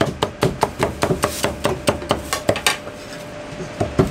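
Chinese cleaver chopping roast pork on a thick wooden chopping block: a quick run of sharp chops, several a second, growing fewer and lighter in the last second or so.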